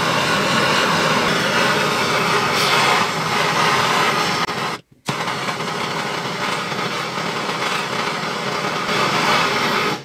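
Handheld gas torch burning with a loud, steady hiss as its flame heats the rusty steel bell parts. The sound drops out for an instant about five seconds in, then carries on.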